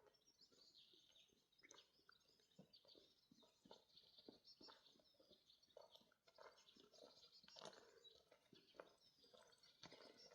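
Faint birdsong: small birds chirping in quick, short notes, with scattered soft clicks.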